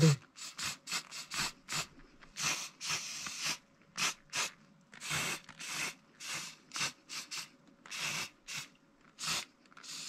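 Aerosol spray paint can spraying in many short hissing bursts, two or three a second, a few held for about half a second or longer.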